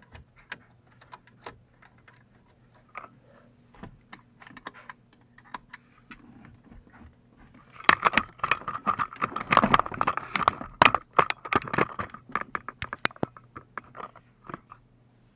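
Rapid clicking of a ratchet wrench on the 7 mm bolts holding the radio in the dash, among scattered clicks and rattles of tools and plastic parts. The clicking is densest and loudest from about eight to thirteen seconds in.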